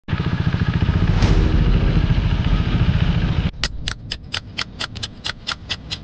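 Motorcycle engine running with a dense, pulsing rumble, stopping abruptly about three and a half seconds in. A steady run of sharp clicks follows, about four a second.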